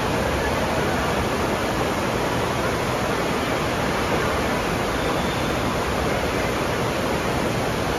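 Water rushing out of a tube water slide's exit and churning down the run-out lane: a loud, steady rush of water.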